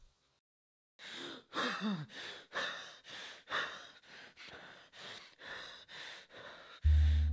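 A man breathing hard in quick, ragged breaths, about two a second, with a couple of short moans early in the run. Near the end a loud low musical drone comes in.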